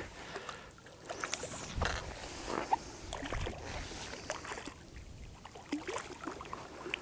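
Irregular splashing and sloshing of stream water as a hooked brown trout is played on a tenkara line, with small scattered splashes and clicks.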